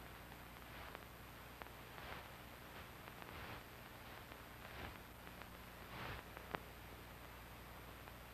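Faint steady hiss and low hum, the noise floor of an old archival film transfer, with a few soft clicks and brief rustles.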